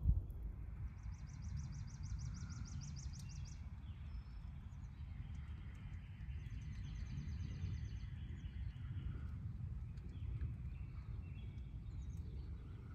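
Outdoor ambience: a steady low rumble of wind on the microphone, with two bouts of rapid, high-pitched repeated chirping, the first about a second in and the second past the middle.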